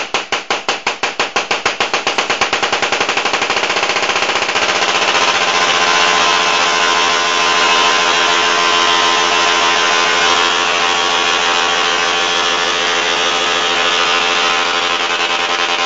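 LithCore solid-state Tesla coil firing sparks from its toroid into the air: a few separate snaps a second at first, quickening until they merge within about four seconds into a steady, pitched buzz.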